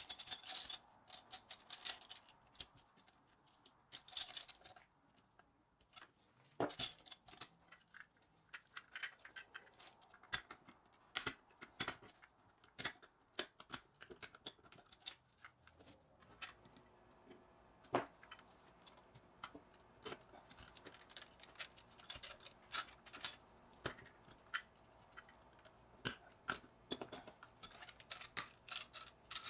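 Irregular light clicks and small knocks of a Mini Tonka toy truck's metal chassis, wheels and parts being handled and pressed together during reassembly, with a little rustling near the start.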